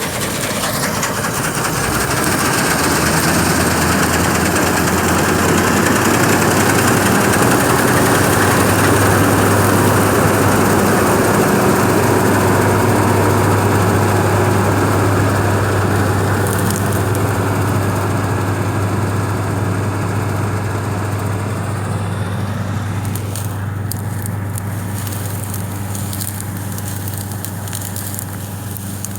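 New Holland 8060 combine harvester running, its engine drone and threshing machinery making a steady mechanical roar. It grows louder to a peak about a third of the way in, then fades gradually, as if the machine is passing and moving away.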